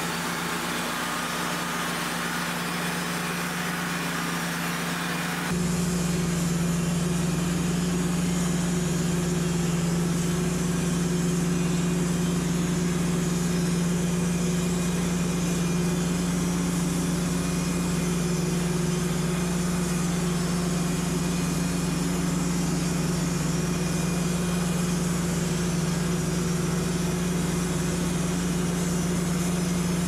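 Wood-Mizer LT35 portable band sawmill running, its engine holding a steady, even hum. The hum gets louder about five seconds in and then stays constant.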